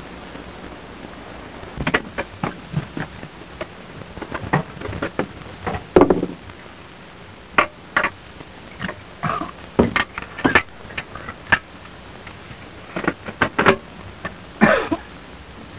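Irregular knocks and metallic clanks of hands working at a standard diver's helmet to get it open, with a few short breathy noises of effort.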